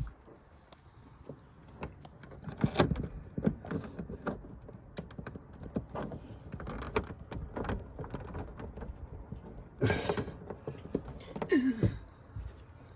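Scattered clicks, taps and knocks of hands fitting window tint shades and their clips into a car's window frames. Two louder scraping rustles come near the end, the second with a short falling squeak.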